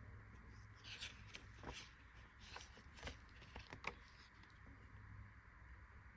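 Faint rustling and light clicks of cardboard packaging being handled, five or six soft strokes in the first four seconds, then only a low steady room hum.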